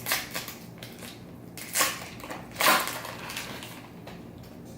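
A trading-card pack's foil wrapper crinkling and being torn open, with three louder crackling rustles in the first three seconds and softer rustling after.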